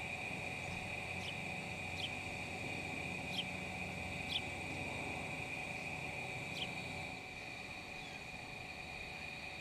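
Outdoor field ambience: a steady, high-pitched insect chorus like crickets trilling, with about five short, downward-sliding bird chirps spaced a second or two apart. The background drops slightly about seven seconds in.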